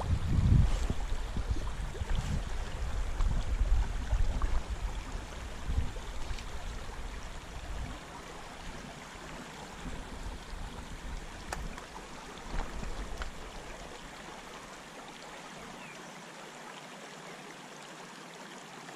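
A shallow river running over a stony bed, a steady rushing hiss. Gusts of wind buffet the microphone with low rumbles through the first half and die away about eight seconds in.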